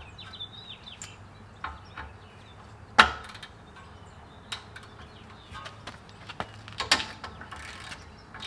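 Long-handled ratchet with a 13/16 socket loosening a tie rod end nut at the steering knuckle: scattered ratchet clicks and metal knocks, with one sharp crack about three seconds in and a quicker run of clicks near seven seconds.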